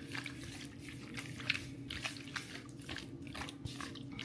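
Raw shrimp being mixed with seasoning and lemon juice in a bowl: irregular wet squelches and clicks, over a steady low hum.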